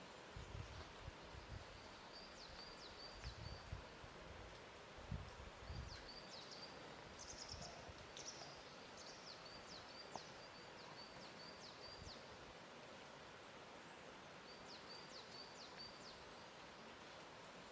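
Faint lake water lapping at the shore with a few soft low splashes, over a steady hiss. A small songbird sings short phrases of quick high chirps in several bouts.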